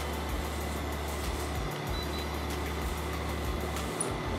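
Background music with a low bass line stepping between notes, over a steady outdoor noise.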